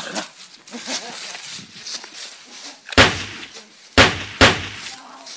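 Three loud, sharp bangs: one about three seconds in, then two more about a second later and half a second apart, each dying away quickly. Quieter rustling and knocking runs between them.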